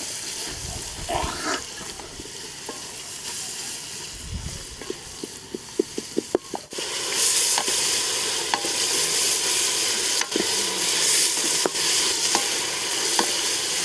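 Duck curry frying and sizzling in a pan while it is stirred, with a run of quick clicks from the spatula knocking the pan. About seven seconds in the sizzling suddenly turns louder and brighter.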